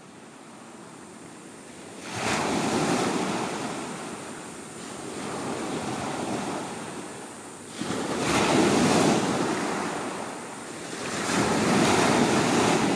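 Small waves breaking onto a pebbly shore, the surf swelling three times, about two, eight and eleven seconds in, each surge fading before the next.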